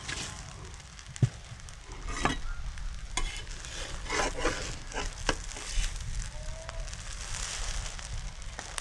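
Spatula scraping and pressing a broken-rice cake in an aluminium kadai, in irregular scrapes and taps, over a faint sizzle of the rice crisping on the hot pan.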